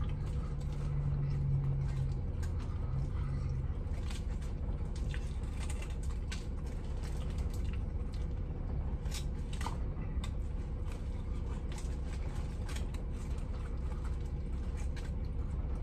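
A man chewing a mouthful of chicken cutlet sandwich, with soft mouth clicks and smacks scattered through, over a steady low rumble in a vehicle cabin. A low hum runs through the first few seconds.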